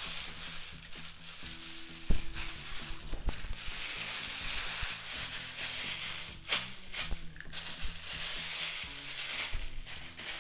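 Plastic roasting sleeve rustling and crinkling as it is wrapped around a rolled, stuffed chicken, with a few sharper crackles.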